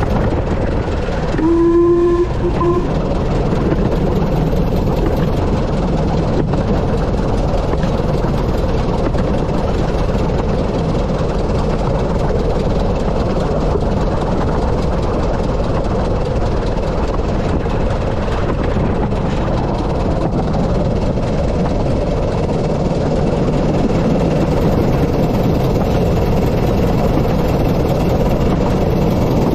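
The 15-inch-gauge steam locomotive River Mite running along the line, a steady rumble of wheels and engine throughout, with one short whistle blast about two seconds in.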